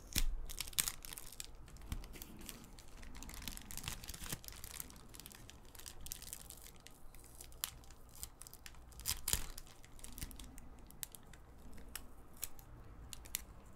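Clear plastic bag of jigsaw puzzle pieces being picked at and torn open by fingers: irregular crinkling and tearing of thin plastic.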